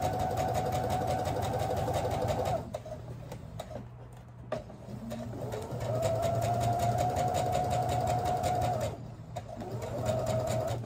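Brother computerized sewing machine stitching a long-length gathering row, in three runs. It stops about two and a half seconds in, starts again around six seconds, and ends with a short run near the end. Each run is a steady motor hum with rapid needle clicks.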